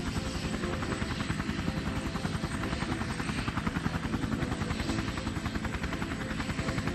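Helicopter rotor blades chopping steadily and rapidly in flight, a cartoon sound effect.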